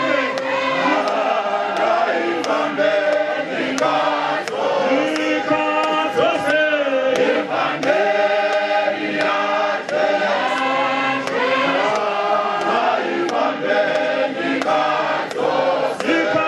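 Congregation of men and women singing a hymn together in chorus, a cappella, with a sharp regular beat keeping time.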